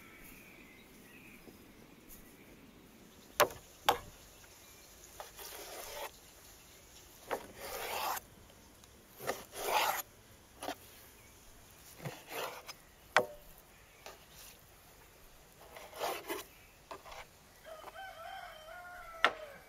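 A large kitchen knife cutting raw fat on a wooden cutting board: sharp taps of the blade on the board, with softer swishing slicing strokes in between. A rooster crows near the end.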